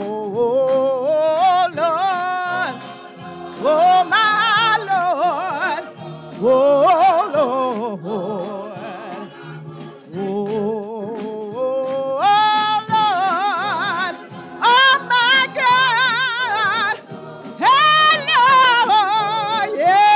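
Gospel singing: a lead voice sings long, wavering runs with wide vibrato in phrases of a few seconds each, over steady held low notes underneath.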